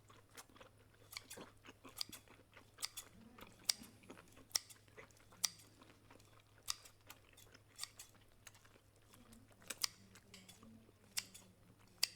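Close-miked mukbang eating sounds: chewing and biting into boiled octopus, a quick irregular run of sharp wet clicks and smacks, over a faint low hum.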